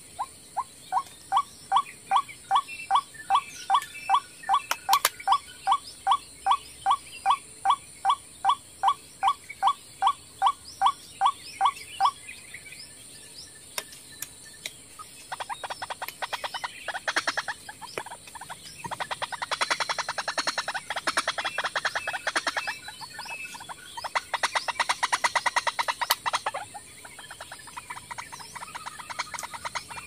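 White-breasted waterhen calling: a long series of short, rising notes, about three a second, for the first twelve seconds, then after a brief pause a faster, harsher chattering call in three bursts.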